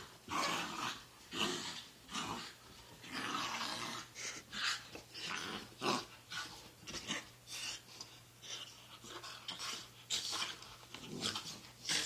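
A Shiba Inu and a Japanese Akita play-fighting, giving a run of short, irregular growls and snarls, one burst after another with brief gaps.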